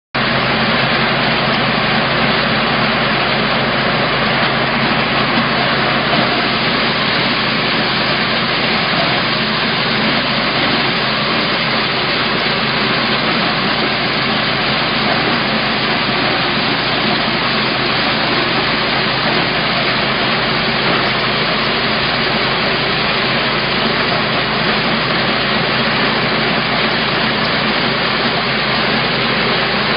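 Gasoline-engine maize peeler and thresher running steadily: the small engine's even drone under a dense, unbroken rush of noise from the threshing machine.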